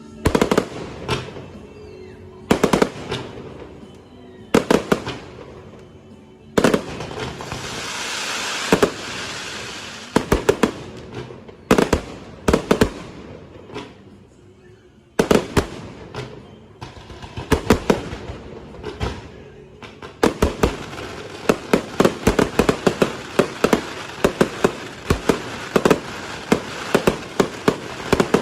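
Aerial fireworks going off: loud single bangs every second or two, a stretch of hissing crackle about a quarter of the way in, then a fast run of many bangs in the last third.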